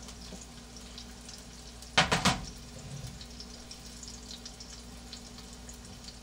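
Two beef burger patties sizzling faintly in a frying pan, with a short clatter of a plate being set down, about three quick knocks, around two seconds in.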